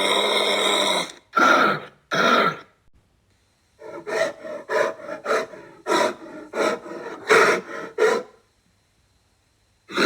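A large wild animal calling: a long call, two short calls, then after a pause a run of about a dozen short calls at two or three a second, and another long call starting at the very end.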